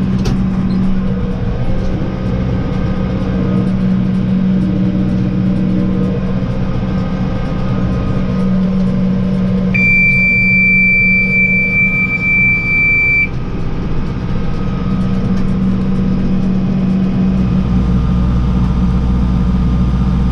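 Mitsubishi MR70 tractor's diesel engine running steadily under load while it drives a STAR mini roll baler. About ten seconds in, a loud high electronic buzzer, most likely the baler's monitor alarm, sounds for about three and a half seconds and then cuts off.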